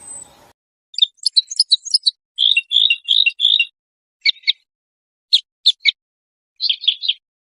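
A songbird singing in short phrases of quick, high, chirping notes with brief pauses between them. A faint background hum cuts off suddenly about half a second in.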